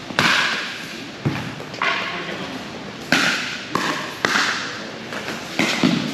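Pickleball paddles striking a plastic ball in a rally: about eight sharp pops, spaced half a second to a second and a half apart, each ringing on in a large hall.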